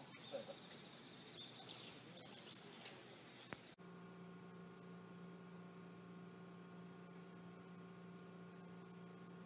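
Near silence: faint outdoor ambience with a few faint bird-like chirps, then an abrupt cut about four seconds in to a faint steady electrical hum.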